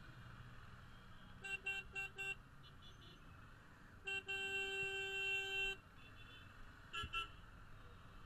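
A vehicle horn honking in stop-and-go traffic, all at one pitch. It gives four quick toots about a second and a half in, a long blast of nearly two seconds about four seconds in, and two short toots near the end, over a low steady rumble of idling engines.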